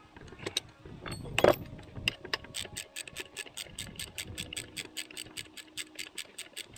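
Hand tools working on engine parts: a few sharp metal knocks, the loudest about a second and a half in, then an even run of clicks, about five a second.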